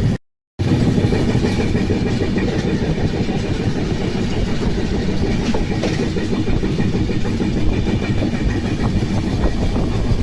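Moving passenger train's running noise: a steady, low-heavy din of wheels on rails. It cuts out completely for a moment just after the start.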